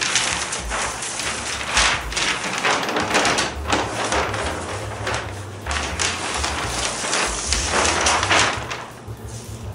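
A large paper sheet of boat plans rustling and crinkling as it is lifted and rolled back, in a string of swells that ease off near the end.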